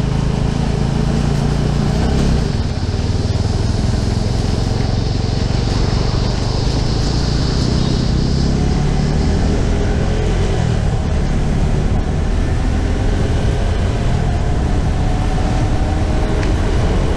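Motorcycle engine running steadily on the road, with a constant rush of road noise.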